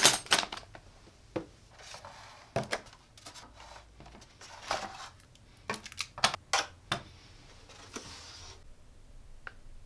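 Robot kit parts handled and set down on a tabletop: irregular sharp clicks and clinks of small plastic and metal pieces, with two short stretches of rustling, one about two seconds in and a longer one near the end.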